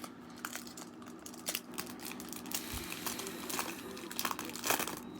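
Crinkling of a foil trading-card pack wrapper being handled, a run of irregular sharp crackles.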